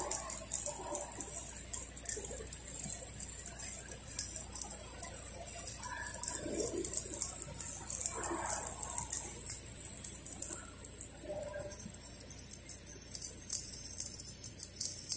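Stick (shielded metal arc) welding arc burning on a pipe joint: a steady high hiss with rapid, dense crackling as the electrode melts in.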